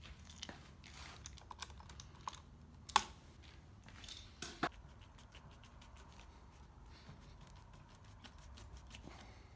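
Light, irregular clicks and taps of handlebar switch-housing parts and grips being handled and fitted back together by hand, with one sharp click about three seconds in and a couple more shortly after.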